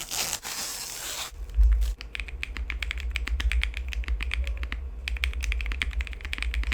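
Plastic film crinkling for about the first second, then rapid typing on a Leobog K81 mechanical keyboard: its linear switches clack quickly in a crispy, even patter over a low rumble.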